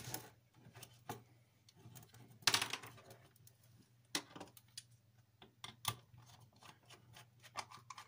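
Plastic case of a plug-in power adapter being handled and pried open by hand: scattered clicks and knocks, with a louder short scraping crack about two and a half seconds in.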